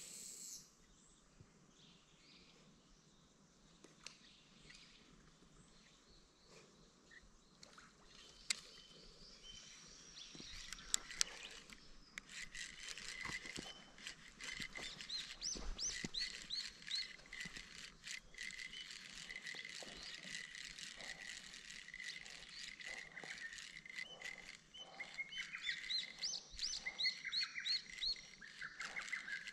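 Faint chorus of birds and insects: quiet at first, then a steady high buzzing from about ten seconds in, with runs of short repeated chirping notes about 13 seconds in and again near the end. A few sharp clicks about 8 and 11 seconds in.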